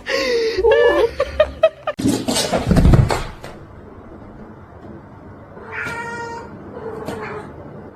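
A cat yowling in a long, wavering call, then a loud, rough, noisy burst about two seconds in, and a shorter meow about six seconds in.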